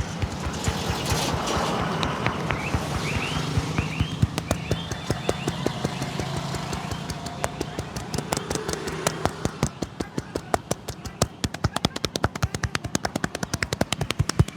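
Rapid rhythmic hand slaps of a head massage, the barber's hands striking the head in a fast patter that speeds up to a dense flurry in the second half.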